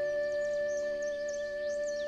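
Soft instrumental background music with long held notes, with quick high bird chirps over it.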